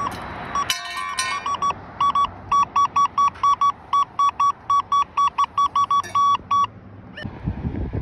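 Metal detector sounding a fast run of identical beeps, about four a second at one steady pitch, signalling a buried metal target under the coil; the beeps stop abruptly near the end.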